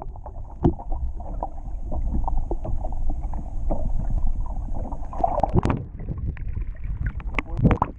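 Muffled water noise from a camera held just below the river surface: a low, steady sloshing with scattered knocks. Louder splashy knocks come about five and a half seconds in and again near the end.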